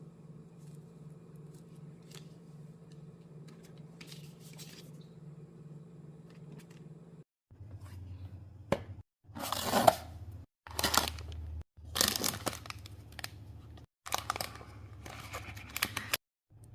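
Blind-box packaging being torn open and handled: loud bursts of tearing and crinkling, cut short by abrupt silences, over a low steady hum. The first half holds only the hum and a few faint rustles.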